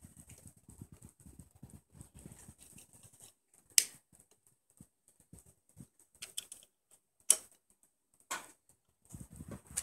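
Hands handling cables and the mount parts at a motorcycle's handlebars: soft rubbing noises and a few sharp clicks, the loudest about four seconds in and two more in the second half.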